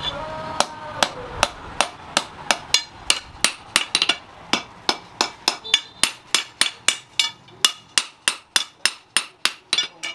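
Hand hammer striking a red-hot steel sword blade, forged from a shock absorber piston rod, on a steel post anvil: a steady run of sharp metallic blows, about three to four a second, as the blade's edge is forged out.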